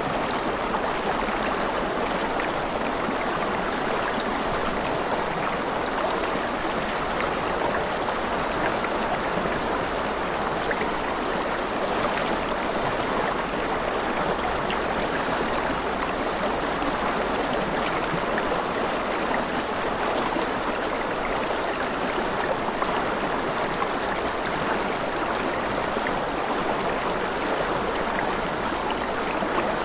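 Rushing river water flowing steadily, an even, continuous wash of noise.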